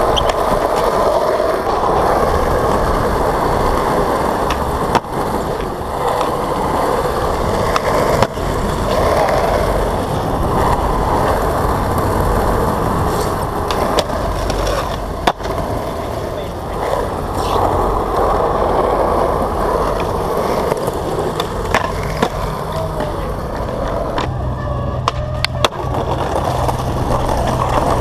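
Skateboard wheels rolling on concrete and paving stones, broken several times by sharp wooden clacks of the board popping and landing tricks.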